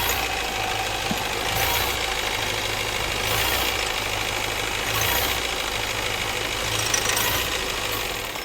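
Mahindra Marazzo's four-cylinder common-rail diesel idling with a 'tk tk' knock. The mechanic blames excess common-rail pressure, suspecting the DRV pressure-regulator valve or else a worn high-pressure pump.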